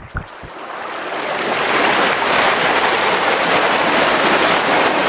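Mountain stream rushing over rocks close by in a narrow canyon: a dense, steady rush of water that swells over the first two seconds and then holds, with a few faint knocks at the start.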